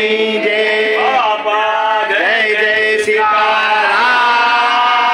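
A mixed group of men and women singing a devotional chant together in unison, holding long notes.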